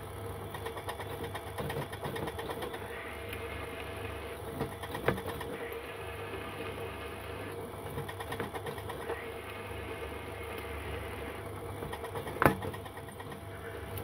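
Pillar drill running, its bit cutting a hole in a solid aluminium billet: a steady machine hum, with two sharp knocks, one about five seconds in and one near the end.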